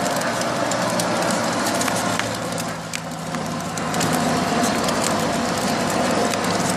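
Pink battery-powered ride-on toy motorcycle driving along a concrete sidewalk: a steady low hum from its electric motor, with scattered clicks and crunches from its hard plastic wheels rolling over the pavement.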